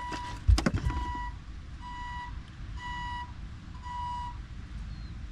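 An electronic warning beeper gives a short, steady, single-pitched beep about once a second, over a low background rumble. A sharp knock, the loudest sound, comes about half a second in.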